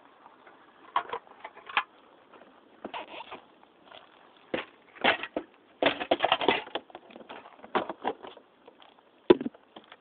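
Camera handling noise: irregular rubbing, scraping and clicks as the handheld camera is moved about near the scooter's plastic bodywork. A dense run of scrapes comes about six seconds in, and a single sharp knock comes near the end.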